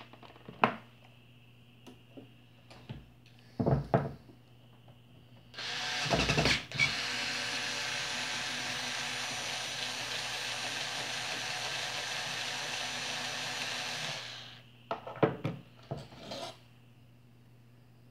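Cordless electric screwdriver running steadily for about nine seconds, backing a screw out of an electric fan motor's housing, a little louder in its first second. Short clicks and knocks come before and after it.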